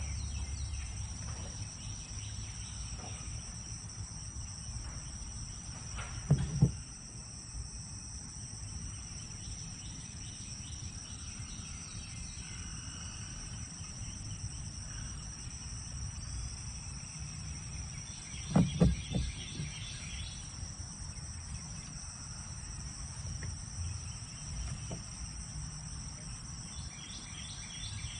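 Steady high-pitched chorus of insects such as crickets, with two short bursts of loud knocks or thumps at about 6 seconds and 19 seconds in.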